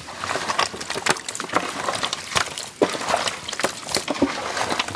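Quail meat and curd marinade being worked together in a large vessel: irregular wet squelches and slops.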